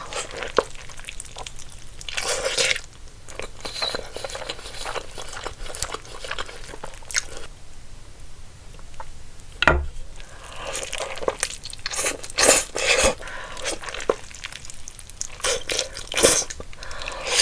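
Close-miked eating sounds of a buldak noodle burrito: bites and chewing, with irregular wet clicks and smacks and some crunch.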